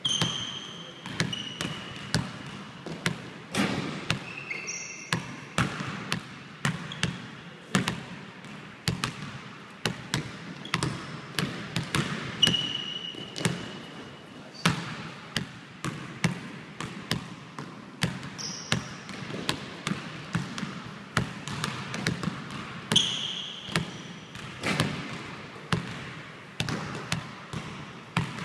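A basketball dribbled on a hardwood gym floor: steady repeated bounces, a few each second. Sneakers squeak sharply on the floor now and then, half a dozen times.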